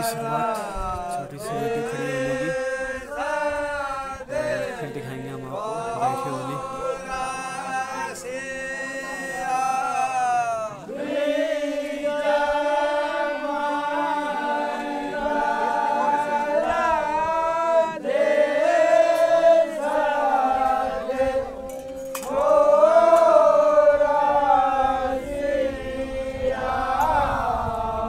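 A group of men singing a Holi folk song together in chorus, their voices moving through long phrases over a steady held note.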